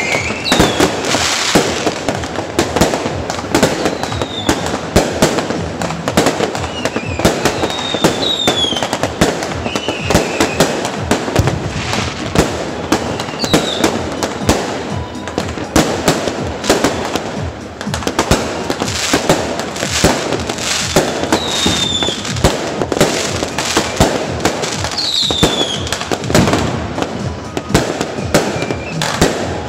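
Many aerial fireworks going off at once: a dense, unbroken crackle of bangs and pops from shells bursting overhead, with short falling whistles every few seconds.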